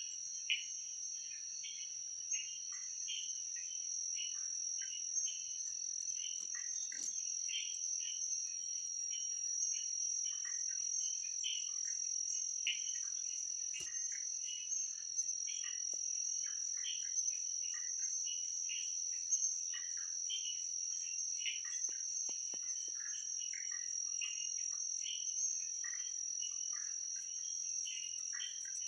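Insect chorus: a steady, high-pitched trill with many short, irregular chirps overlapping it.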